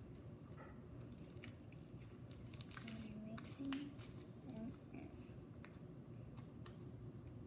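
Soft slime being pressed and squished into small crunchy beads, with faint scattered crackles and clicks from the beads; one sharper click a little over three and a half seconds in.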